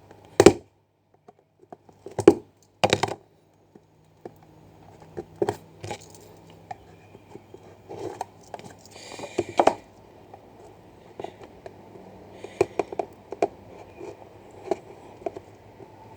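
Handling noise from a sealed cardboard trading-card box being opened: irregular knocks, taps and scrapes as the box is handled and its seal sticker is cut. The loudest knocks come about half a second in and again around two to three seconds in.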